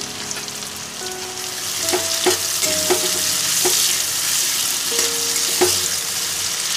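Sliced onions sizzling steadily in hot oil in a metal kadai, frying toward golden brown, while a metal spatula stirs them and scrapes against the pan with several short clicks.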